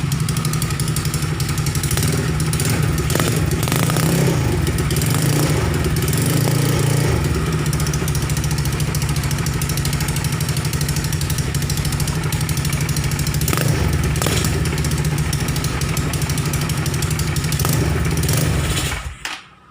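Viar 260 cc motorcycle engine on a test run, idling steadily with a rapid even beat, then cut off abruptly near the end.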